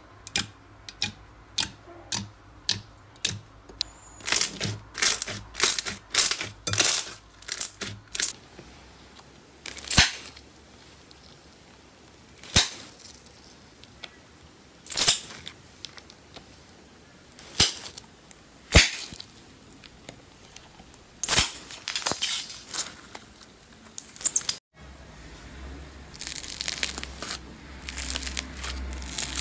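Slime being handled, heard close up: a fast run of sticky pops and clicks as a hand presses glossy slime, then single sharp squishes a second or more apart as jelly cubes are handled, then a dense, steady crackle from about 25 seconds in as foam-bead slime is squeezed.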